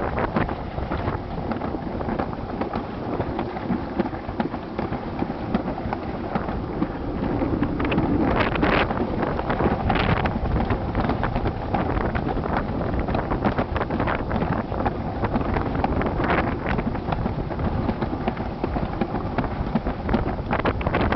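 Alpine slide sled running fast down a concrete track, a steady rumble of the sled on the track with frequent clicks and knocks, mixed with wind buffeting the microphone.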